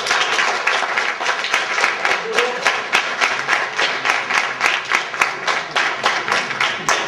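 Audience applauding, a dense steady clapping that dies down near the end.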